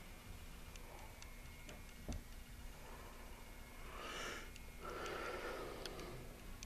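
A person breathing close to the microphone: a short sniff or intake about four seconds in, then a longer exhale, with a soft thump about two seconds in and faint clicks.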